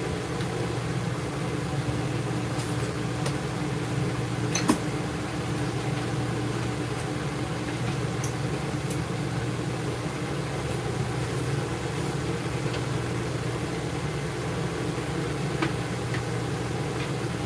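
Steady low machine hum with a sharp click about five seconds in and a few faint ticks.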